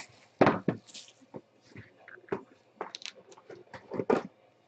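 Trading cards and their packaging being handled: a string of irregular taps, clicks and rustles, loudest about half a second in and again near the end.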